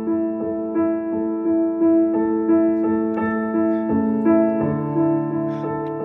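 Background piano music: a steady run of repeated notes over a held bass, with the bass moving to a lower note about four seconds in.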